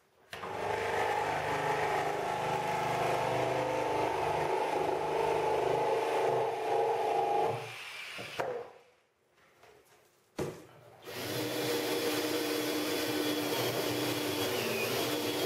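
Electric jigsaw sawing through the bottom of a plastic 55-gallon drum, a steady motor-and-blade buzz for about seven seconds. After a short pause and a click, a cordless drill with a 2-inch hole saw bores into the drum's plastic wall, its motor pitch dipping near the end.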